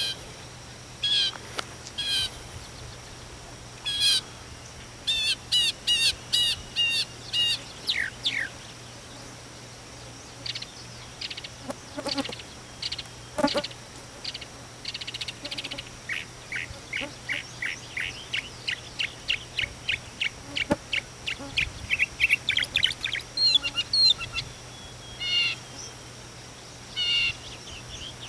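Northern mockingbird singing: short high phrases, each repeated several times in a row, including quick runs of rapid notes, a falling slurred note, and a long string of fast repeated notes in the second half.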